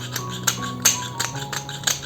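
Background music with sustained tones, overlaid by a few sharp, irregular taps or clicks that stop suddenly at the end.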